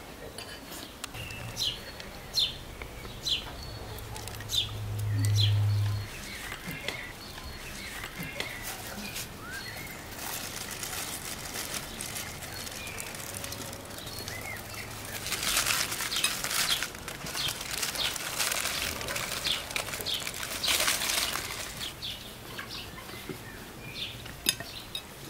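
Outdoor garden ambience with small birds chirping in short calls. A low hum swells and then cuts off about six seconds in, and later there is a stretch of louder rustling noise with clicks lasting several seconds.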